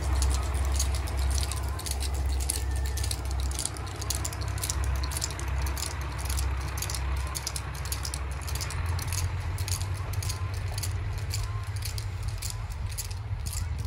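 Diesel sightseeing train (two converted KiHa 185 railcars) pulling out and running away down the line, a steady low engine rumble, with a fast, continuous rattling over it.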